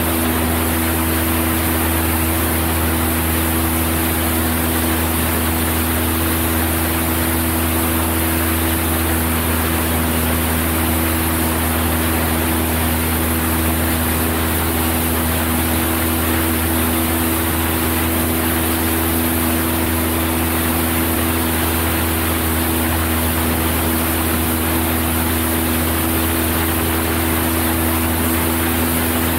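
Cessna 172's piston engine and propeller in flight, a loud steady drone that does not change in pitch.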